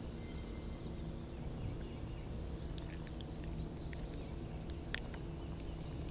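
Quiet outdoor lake ambience: a low steady hum with faint bird chirps, and a few small clicks, the sharpest about five seconds in.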